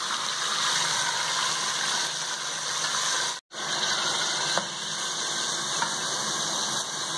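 Chunks of beef sizzling as they fry in hot oil in a steel pot, with a few light clicks of a metal ladle against the pot as they are stirred. The sound drops out for a moment about three and a half seconds in.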